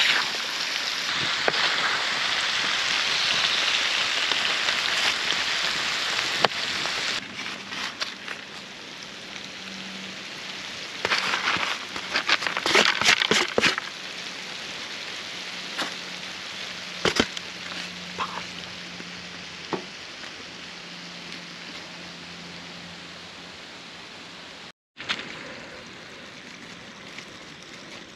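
Mushrooms sizzling as they fry in a pan, a steady hiss that drops away abruptly after about seven seconds. After that, a quieter stretch with scattered sharp clicks and clatters.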